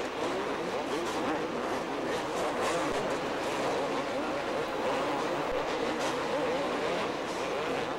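A pack of two-stroke motocross bikes racing, their engines revving up and down over one another in a continuous blend.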